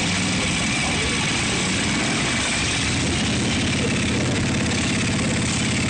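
Harley-Davidson V-twin motorcycle engines idling with a low, steady beat; a nearby engine's pulsing becomes more prominent about halfway through.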